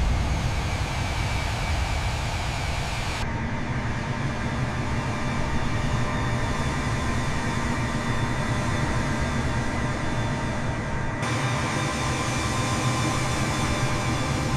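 Jet airliner engines running: a steady, heavy noise strongest in the low end, with faint steady tones above it. Its character changes abruptly about three seconds in and again about eleven seconds in.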